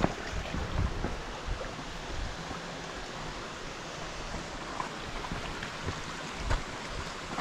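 Steady rushing noise with a few faint knocks.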